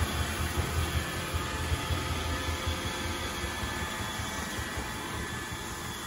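iRobot Roomba 960 robot vacuum running across a hardwood floor: a steady whirring hiss over an uneven low rumble.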